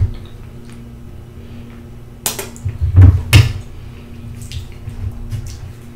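A fork and hand clinking and knocking against a metal sheet pan of fried fish and spaghetti while eating: a few sharp clinks with dull knocks from about two to three and a half seconds in, then a few lighter ticks, over a steady low hum.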